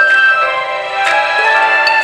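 Background music: a melody of held notes over chords with light percussion.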